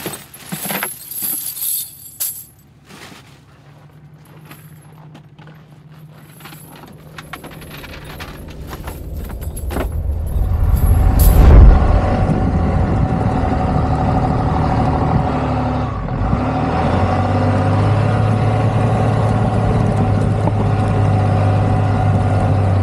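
A few short clicks and rustles, then a sound that swells over several seconds to a loud peak about halfway through. After that a Ram pickup truck drives on through snow with a steady engine drone, its tyres churning and throwing up snow.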